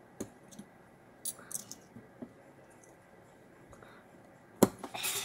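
Light scattered clicks and handling noises as a Chrysler 300 blower motor resistor is put back together by hand, its circuit board being fitted into the finned aluminium housing; one sharp, louder click near the end.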